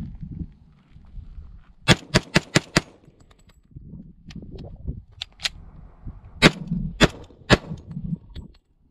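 Springfield Armory 1911 pistol in .45 ACP firing: a fast string of five shots about two seconds in, then three more shots about half a second apart a few seconds later, with fainter sharp cracks in between.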